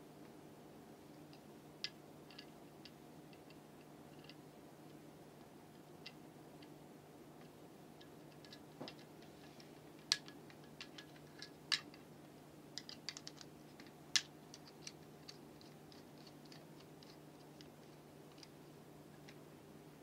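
Small sharp clicks and taps of a plastic switch housing and its brass terminal screws being handled and worked with a screwdriver, scattered at first and busiest between about 10 and 15 seconds in, over a steady low hum.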